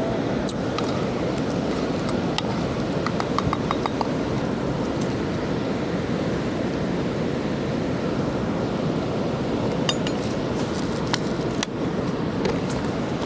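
Steady rushing noise with scattered light clicks. A quick run of small ringing clinks comes about three to four seconds in, and a denser cluster of sharp clicks comes near the end.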